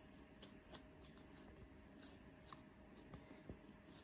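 Near silence, with faint scattered small clicks and crackles as a silicone mould is peeled by hand off a cured epoxy resin casting.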